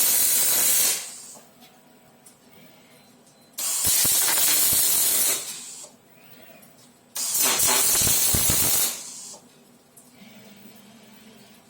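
Robot arc welding with a Fronius power source: the arc burns with a steady hiss and crackle in short welds of about two seconds each. It strikes up suddenly and cuts off, with pauses of about two seconds between welds. One weld is ending at the start and two more follow.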